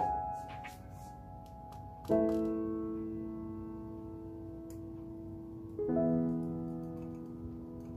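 Background piano music: slow chords, each left to ring and fade, struck at the start, about two seconds in and again near six seconds.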